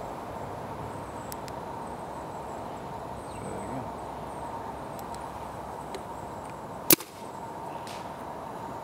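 A single sharp shot from a paintball marker about seven seconds in, against a steady low background.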